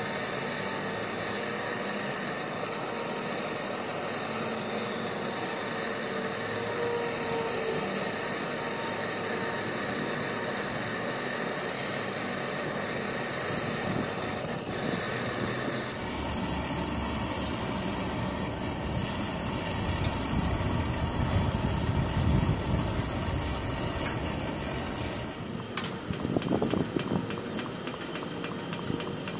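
Hand-held propane torch hissing steadily as it heats the generator of a Coleman 425E camp stove, with the stove's diesel flame burning alongside; the torch is trying to get the diesel hot enough to vaporise into a clean blue flame. About halfway through, a gusty low rumble of wind on the microphone comes in, and near the end there is a quick run of clicks.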